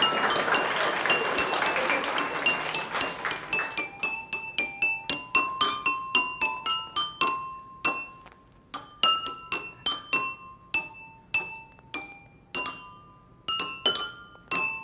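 A set of water-tuned drinking glasses struck one after another to play a melody. Each note is a sharp clink followed by a clear ringing tone that dies away, at several different pitches, about two or three notes a second, with a short pause about eight seconds in.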